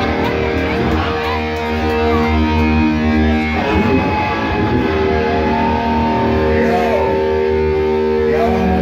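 Amplified electric guitar holding a long ringing chord that breaks off about three and a half seconds in, then another long held chord, over a steady low amp drone and crowd chatter.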